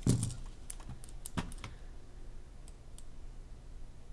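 A dull knock, then scattered light clicks and taps from game pieces being handled: cards and the plastic-and-cardboard box tray.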